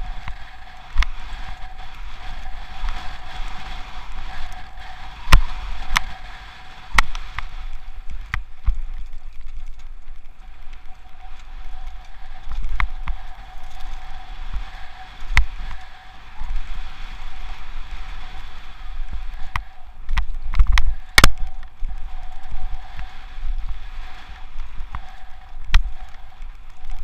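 Mountain bike being ridden fast over a dirt forest trail, heard from a camera on the bike or rider: wind and trail rumble on the microphone, with frequent sharp knocks and rattles as the bike hits bumps, the loudest about 21 seconds in. A steady thin hum sits under it throughout.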